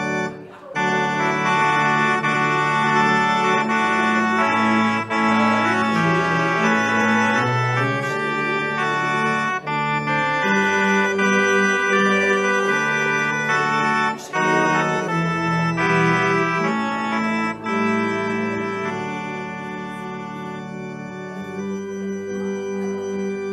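Organ playing slow, sustained chords, with short breaks between phrases, growing softer over the last few seconds.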